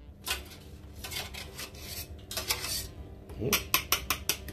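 Knife blade scraping grated onion off a metal box grater and clinking against the grater and a glass plate: scraping strokes, then a quick run of sharp metallic clinks about three and a half seconds in.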